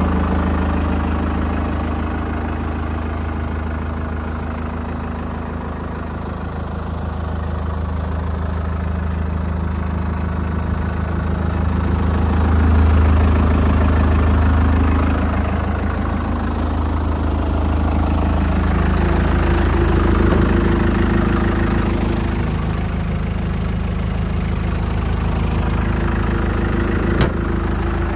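John Deere 5093E tractor's four-cylinder diesel engine idling steadily, its hum swelling and fading in level. A single sharp click near the end.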